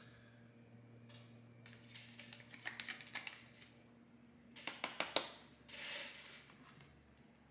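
Faint clicks, taps and rustles from a small plastic dressing cup being handled while Caesar dressing is scraped out onto the salad with a metal fork, with a short soft rustle about six seconds in.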